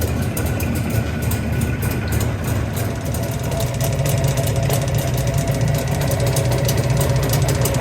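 Jawa 350 type 638 air-cooled two-stroke twin idling from a cold start, with a metallic clatter from the cylinders (a 'bell-tower' rattle) setting in as it warms. It grows slightly louder a few seconds in. The owner suspects the piston assembly: wrong piston clearances, and possibly the wrist pin.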